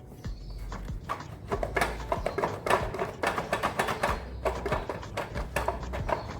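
Hand tools clicking and clattering against the metal parts of a ride-on lawn mower during an oil and filter service: a dense run of irregular metallic clicks and rattles, busiest from about a second and a half in.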